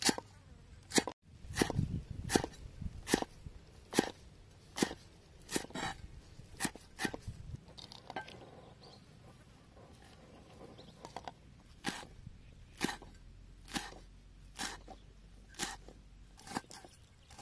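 Cleaver chopping greens and leafy herbs on a wooden chopping block: sharp chops roughly once a second. They pause for a few seconds in the middle, then resume.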